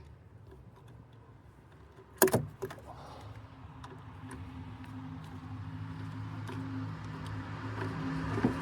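A few light tool ticks and a sharp metallic knock about two seconds in, then a motor vehicle's engine hum that grows steadily louder.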